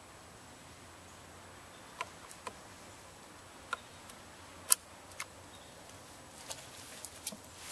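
A scattering of sharp metallic clicks and clacks from handling a Savage Model 64 .22 semi-automatic rifle. The single loudest clack comes about halfway, and a quick cluster of clicks follows near the end.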